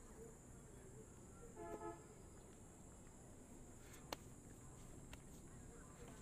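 Near-silent outdoor ambience with a steady high hiss. A faint, short pitched toot sounds just under two seconds in, and a single sharp click comes about four seconds in.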